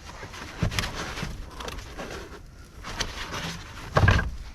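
A few short knocks from a battery hold-down clamp being worked against a new car battery in a 2018 Hyundai Tucson's battery tray, with a louder thud near the end.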